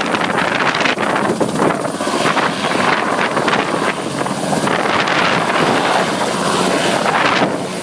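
Coast Guard helicopter running close by: a loud, steady rush of rotor and turbine noise.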